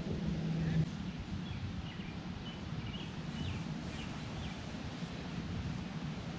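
Outdoor ambience: a steady low rumble of background noise with a few short, faint bird chirps in the middle. A steady low hum cuts off about a second in.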